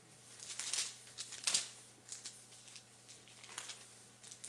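Thin Bible pages being leafed through: several short crinkly rustles, the loudest about a second and a half in.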